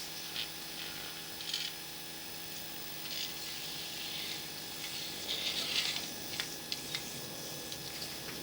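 Scattered light scratching, rattling and ratchet-like clicks of drain-camera gear being handled, busiest a little past halfway, over a steady electrical hum.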